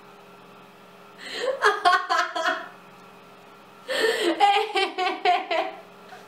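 A woman laughing in two bouts of quick pulsing laughter, one starting about a second in and a longer one near four seconds in.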